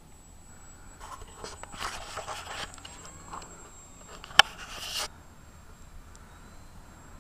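Handling noise close to the microphone: about four seconds of scraping and rustling with one sharp click, the loudest moment, about four and a half seconds in, cutting off suddenly at about five seconds.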